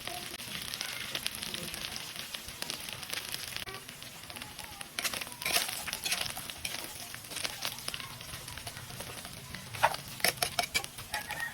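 Field rat meat sizzling and crackling in a hot pan, a steady hiss with scattered sharp pops that come in thicker clusters about halfway through and again near the end.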